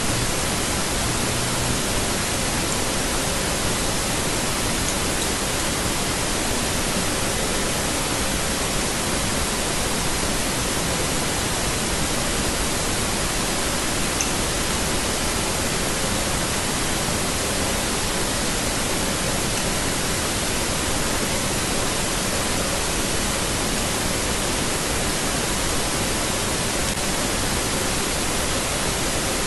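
A steady, even hiss with no separate strokes or clicks.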